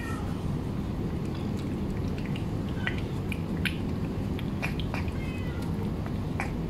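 Stray cat eating wet food off a plastic tray, with quick scattered clicks of chewing and licking, and a few short meows, over a steady low background hum.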